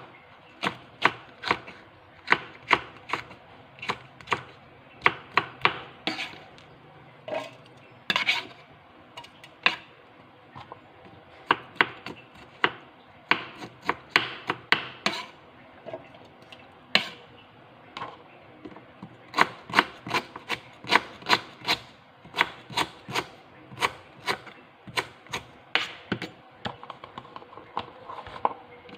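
A kitchen knife chopping on a cutting board in uneven strokes, roughly two a second, with a few short pauses.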